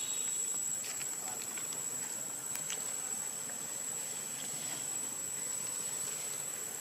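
Steady outdoor background hiss with a constant high-pitched whine, and a few faint soft clicks.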